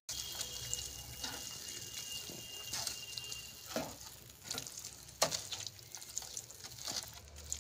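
A spatula stirring and pressing milk-soaked fried bread pieces in a kadhai as the milk cooks in, with a few separate wet scrapes and squelches at irregular moments over a low simmer.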